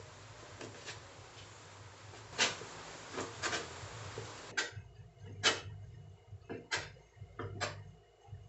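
Kitchen knife cutting boiled beef skin on a plastic cutting board: irregular knocks as the blade strikes the board, about one or two a second. A steady hiss underneath stops about halfway through.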